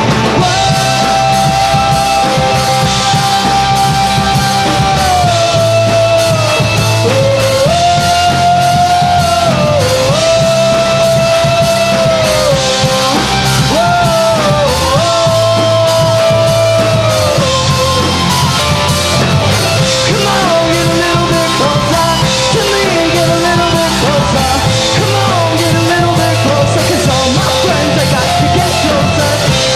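Rock band playing live: electric guitars and drum kit, with a male lead vocal singing over them.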